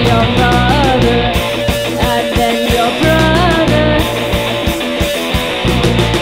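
Rock band playing live: electric guitar, bass guitar, keyboards and drums, with regular drum hits and a pitched lead line that slides up and down.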